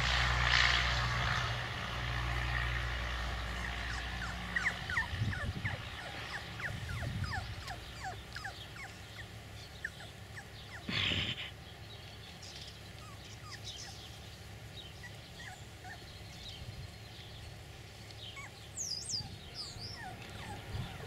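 Beagle puppy giving faint, short, high whimpers and squeaks, most falling in pitch, with one short louder noise about eleven seconds in. A low steady drone fades out over the first few seconds.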